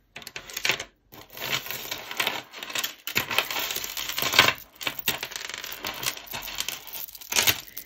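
Beads and metal chains clinking and rattling as a hand rummages through a pile of broken jewellery, a dense irregular clatter; a strand of round glass beads clicks together as it is lifted out.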